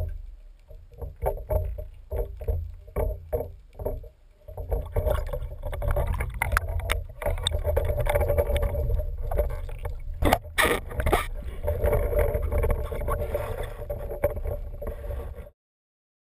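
Underwater sound from a camera mounted on a speargun: a deep, uneven rush of water against the housing, with scattered clicks and knocks as the gun and shooting line are handled. A cluster of sharp knocks comes about ten seconds in, and the sound cuts off suddenly about a second before the end.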